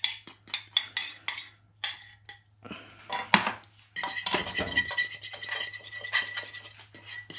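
Metal fork tapping quickly against a bowl as it scrapes the last of the egg and cheese sauce into a frying pan. From about four seconds in, the fork scrapes continuously around the pan with a steady high metallic ring.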